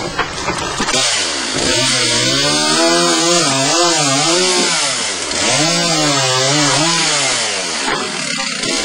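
Two-stroke chainsaw cutting through wooden debris, starting about a second in. Its engine pitch rises and falls as the chain bites and frees in the wood, with a brief dip in speed midway and another near the end.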